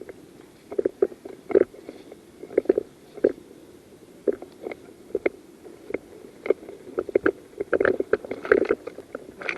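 Irregular crunching and rustling of a player moving on foot, with clothing and kit rubbing against a body-worn camera. The short knocks come unevenly and grow busier in the last couple of seconds.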